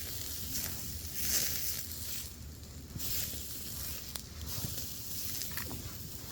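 Steak sizzling on a grill grate over campfire coals, a steady hiss that swells twice, with a few small crackles and a low wind rumble underneath.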